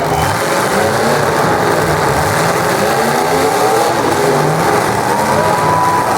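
Several demolition derby cars' engines revving hard at once, their pitches rising and falling over a constant din.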